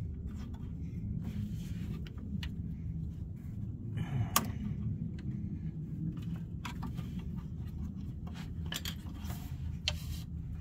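Scattered small plastic clicks and rattles as the plastic clip coupling of the lower radiator hose on a BMW E90 is worked loose by hand, with one sharper click about four seconds in. A steady low hum runs underneath.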